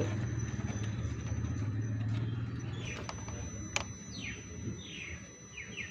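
Low steady engine-like hum, as of a vehicle running, that fades away about halfway through. A few short falling chirps follow later on.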